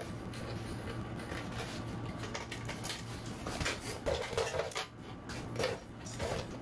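Light clicks and knocks of a licence plate and its plate frame being handled and pressed into place on a motorcycle's rear plate bracket, over a steady low hum.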